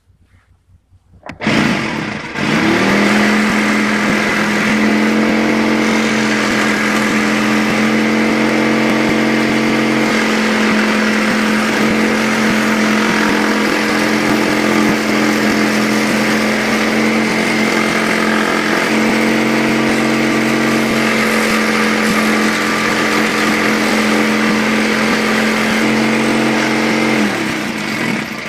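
Electric jigsaw, mounted under a homemade saw table, switched on and running steadily with a pitched motor hum. It comes up to speed about two seconds in and winds down near the end.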